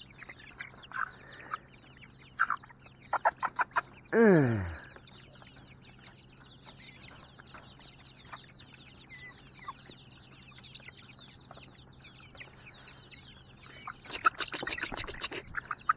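A flock of chickens clucking and squawking as they crowd in to peck at banana held through chicken wire, with soft pecking ticks between calls. A loud falling squawk comes about four seconds in, and a burst of rapid clucking near the end.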